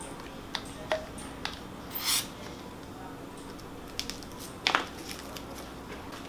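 Light plastic clicks and a short rustle of wrapping as a needle is unwrapped and fitted onto a large plastic syringe, with scattered clicks through the handling.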